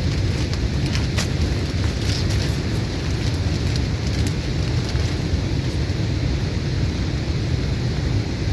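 Steady rushing roar of a waterfall close by, with a few faint clicks of handling in the first half.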